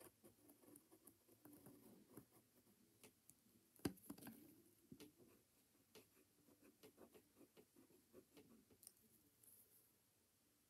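Faint scratching and light tapping of a pencil on paper while lines are drawn, with one sharper knock about four seconds in.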